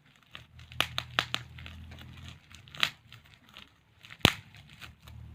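Packaging of a wireless microphone being handled: plastic crinkling and tearing, with a few sharp clicks and snaps, the loudest near the end.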